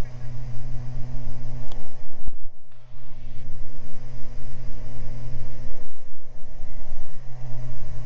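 Beechcraft Baron's twin piston engines droning steadily in flight, heard through the cockpit headset audio, with a brief dropout a little over two seconds in.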